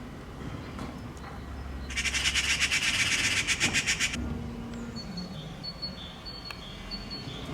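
Eurasian magpie giving its harsh, rapid rattling chatter for about two seconds, starting about two seconds in: the alarm call of magpies mobbing a cat near their fledgling. Later comes a faint, thin, steady high note.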